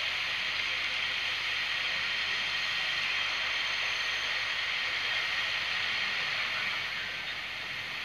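Steady background hiss with no distinct events, dropping a little about seven seconds in.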